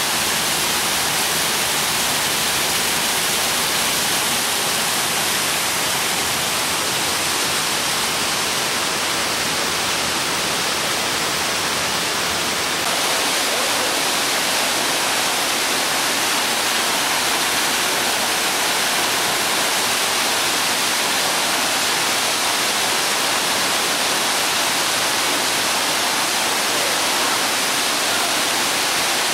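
A waterfall splashing down onto rock in a narrow gorge, a steady rushing water noise. It gets slightly louder about thirteen seconds in.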